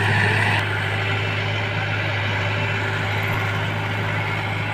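Yanmar AW70GV combine harvester's diesel engine running steadily with a constant low hum.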